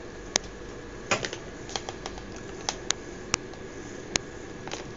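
Light, sharp clicks and taps, about eight of them at uneven intervals, from handling gear at an electronics bench, over a steady faint hum.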